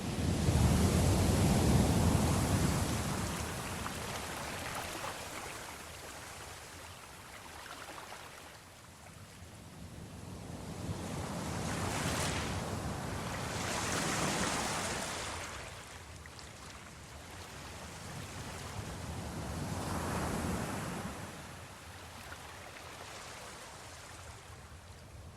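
Ocean surf: waves surge in and fade away in three slow swells, the first the loudest.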